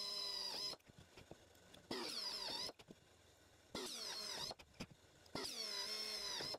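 Electric drill running in four short bursts as it drills a hole through a small metal strap clamped in locking pliers. The motor's whine rises as each burst starts and drops as it stops, with a few small clicks in the pauses.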